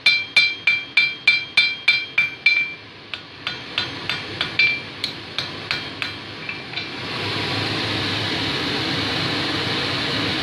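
Blacksmith's hammer striking red-hot steel on an anvil, about three blows a second with a bright ringing from the anvil, then after a short pause lighter, quieter blows. About seven seconds in, a steady rushing noise from the forge fire and its air blower takes over.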